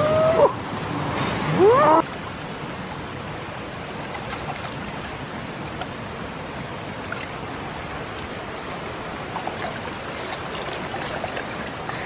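Mountain stream water rushing steadily over rocks. Two short rising cries stand out over it in the first two seconds.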